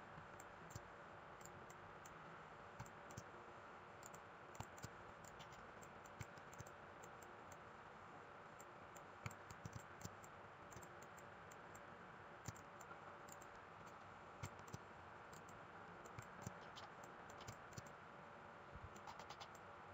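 Faint, irregular clicks of a computer mouse over quiet room hiss, with a few slightly louder clicks scattered through.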